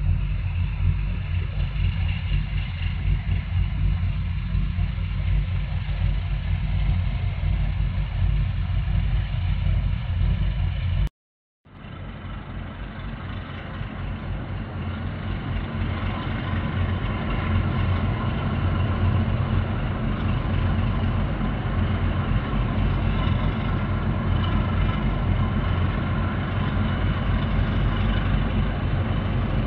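Boat engines running with a low, steady rumble. The sound cuts out for about half a second a little before the middle, then comes back and builds up over a few seconds.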